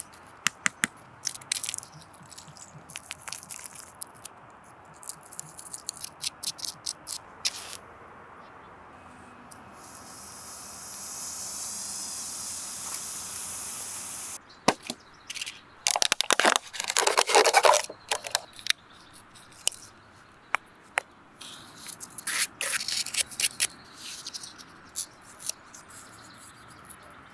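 Close-up handling sounds. First a run of sharp cracks and clicks as pill tablets are crushed, then a steady hiss for about four seconds as the mixture gives off thick smoke. About sixteen seconds in there is a loud scratchy scraping burst, and later a few lighter clicks and scrapes.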